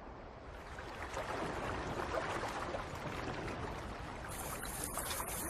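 Water sloshing and trickling among floating sea ice, a soft continuous wash. A thin high hiss joins a little after four seconds in.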